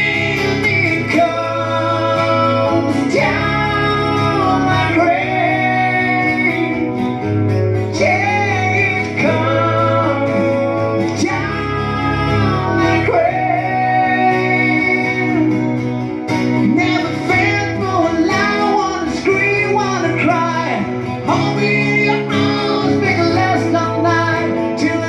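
Live acoustic rock song: two acoustic guitars strummed with a male lead vocal singing the melody.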